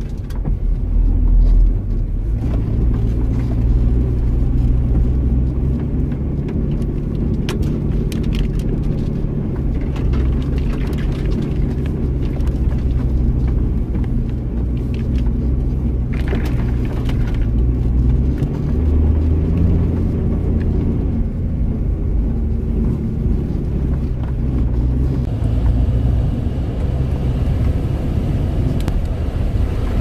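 Off-road 4x4's engine and drivetrain droning inside the cabin as it drives slowly along a snowy forest track, the pitch of the drone shifting a little now and then, with a few short knocks from the rough track.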